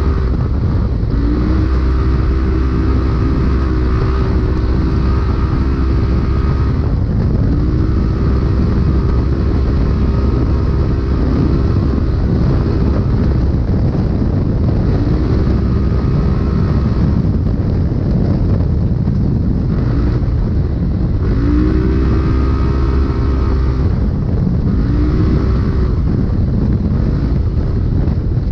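Polaris RZR race UTV engine, heard from inside the cab at race pace: it revs up, holds, and drops off again about six or seven times as the throttle is worked. A heavy rumble and a steady rush of noise run under it throughout.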